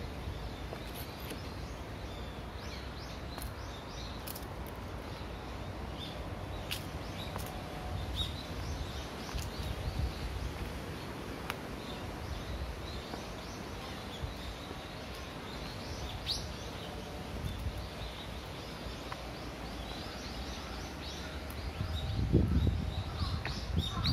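Small birds chirping here and there over a steady outdoor background hiss, with low thumps near the end.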